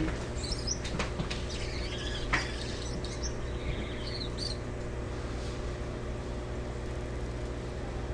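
Gouldian finches giving soft, high chirps and a few sharp clicks over the first four seconds or so, then falling quiet. A steady low hum runs underneath throughout.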